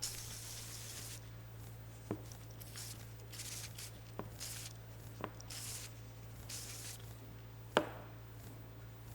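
A few light, sharp clicks and taps from small parts being handled, the loudest near the end, over a steady low hum.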